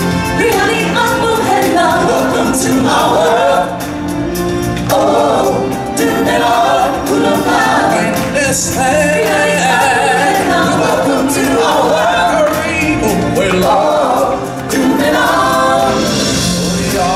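Live stage-show music: a group of voices singing together over a steady instrumental backing, with brief dips in loudness about four seconds in and again near the end.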